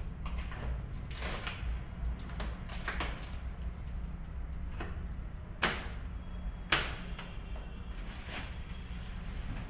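Plastic packaging film being handled and pulled on a new air cooler: short crinkling rustles about once a second, and two sharp snaps a little past halfway, about a second apart, the loudest sounds here. A steady low hum runs underneath.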